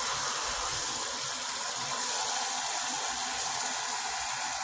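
Water from a kitchen faucet's spray head pouring steadily into a stockpot already part full of water, chicken carcass and chopped vegetables: a constant splashing hiss as the pot fills.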